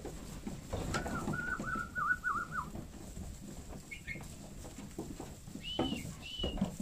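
Birds calling in a sheep barn: one wavering call lasting about a second and a half, then a brief chirp and two short high calls near the end, over the faint shuffling of the crowded flock.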